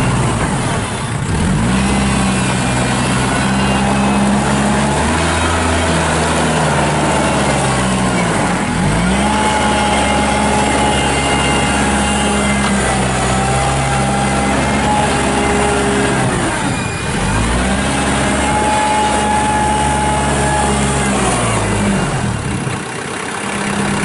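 Kubota L4740 compact tractor's diesel engine running under load as the tractor drives, with a higher whine over the engine note. The engine speed drops and climbs back several times.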